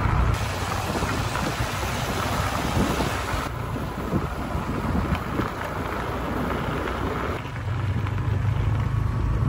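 Wind buffeting the microphone in a steady low rumble and rush, mixed with the running of a moving motorbike. The noise changes abruptly a few times.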